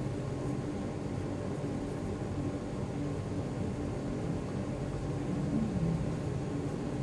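Steady low hum and hiss of room background noise, with no distinct events.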